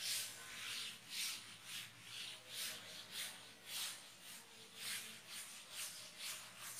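Chalkboard duster wiping chalk off a chalkboard in quick back-and-forth strokes, about two a second, a dry scrubbing rub.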